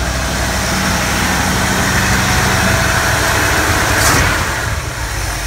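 1955 Chevy truck engine with a freshly rebuilt Edelbrock carburetor, running on cold-start fast idle with the choke on. The sound swells slowly to a peak about four seconds in as the throttle is worked to kick it down off the fast idle, then settles to a lower, quieter idle.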